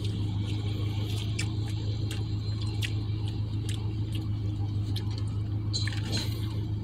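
Steady low hum of a vehicle engine idling, heard from inside the cab, with scattered light clicks and rustles of eating from a plastic fork and takeout noodles.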